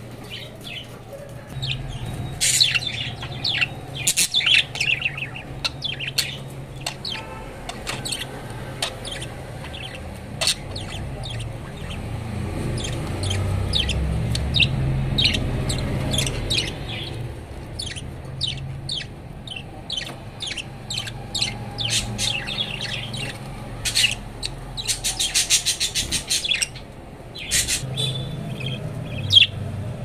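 Budgerigars chirping in short, sharp calls, coming in quick runs at times, over a low steady hum.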